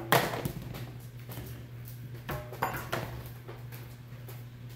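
Small plastic game pieces of a Pigs on Trampoline board game clicking and clattering against the plastic board: one sharp click just after the start, then a few lighter clicks.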